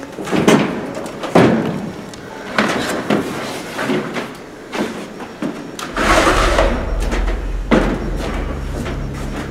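Footsteps thudding on wooden gym bleachers as a person climbs up them: irregular heavy thumps roughly a second apart. A low hum comes in about six seconds in.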